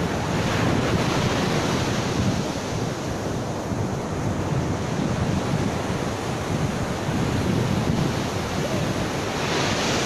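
Ocean surf breaking and washing up a beach in a steady, loud wash, with wind buffeting the microphone.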